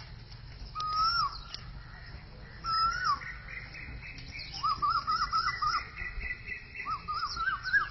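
Bird-like chirping: two single rising-and-falling whistled notes, then two quick runs of wavering chirps, one about halfway through and one near the end.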